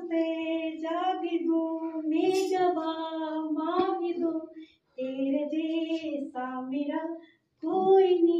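A woman singing a melody unaccompanied in long, gliding notes, breaking off briefly about five seconds in and again a couple of seconds later.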